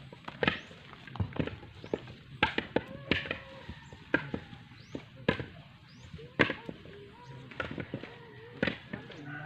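Coconuts being split open with a blade: a run of sharp chopping knocks at an uneven pace, about one or two a second. Faint short bird chirps sound above them.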